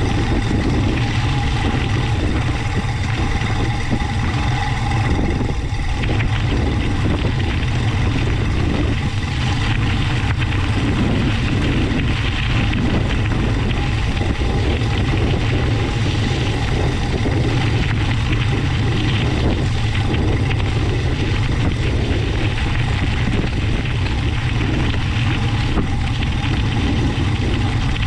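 Mountain bike tyres rolling steadily on a gravel road, with a loud, steady low wind rumble on the action camera's microphone.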